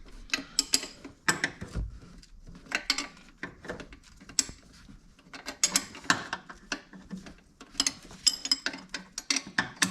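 A wrench working a 12 mm bolt in an engine bay: a run of irregular sharp clicks and metal-on-metal ticks.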